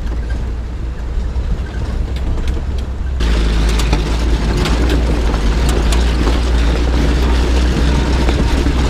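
Old Willys Jeep running along a rough trail: a steady low engine hum under wind and road noise. About three seconds in it turns suddenly louder and rougher, with scattered knocks and rattles.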